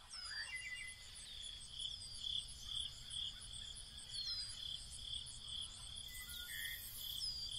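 Crickets chirping quietly in a steady pulsing rhythm, about two chirps a second, with four short falling whistles spread through it.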